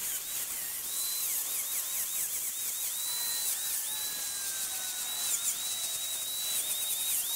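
Angle grinder with a thin disc cutting into a steel bar: a steady high whine over a hiss of grinding. The whine's pitch dips and recovers again and again as the disc is pressed into the metal.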